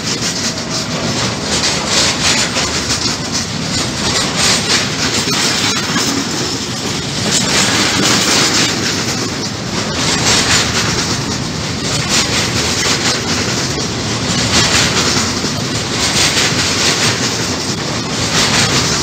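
Intermodal freight train passing close by, its wagons' wheels clattering over the rail joints with a loud, steady rush. The sound swells about every second and a half as each set of wheels goes by.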